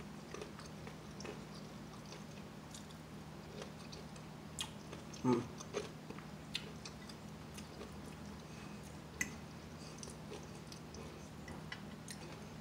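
A person chewing food with her mouth close to the microphone: soft, scattered smacking and clicking mouth sounds, with a brief hum of the voice about five seconds in. A faint steady low hum sits underneath.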